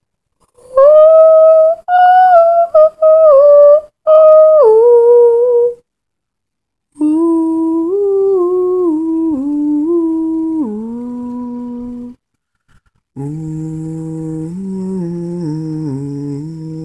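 A young male bass singer sings the same short stepwise melody three times, each an octave lower than the last: first high in falsetto, then in mid chest voice, then low in chest voice. The first phrase is loudest and broken by brief gaps; the lowest begins near the end and carries on.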